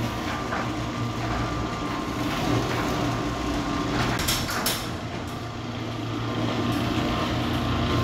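ProMax garage door opener motor running steadily with a hum as it drives the sectional door along its track, working again on a newly replaced motor start capacitor. A few sharp clicks sound about four seconds in.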